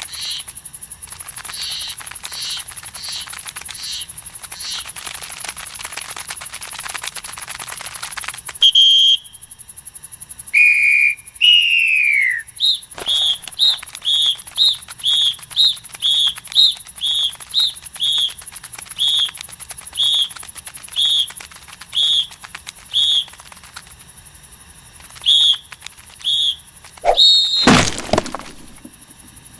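Cartoon sound effects: a steady hiss with faint high chirps, then a high tone and a whistle falling in pitch about eleven seconds in. A long run of short high squeaks follows, about one or two a second, and a sudden thump comes near the end.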